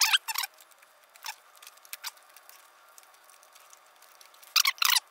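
Short crinkly rustles and scratches of gloved hands pulling at motorcycle wiring and plastic connectors. They come in a few brief clusters, the biggest at the start and near the end.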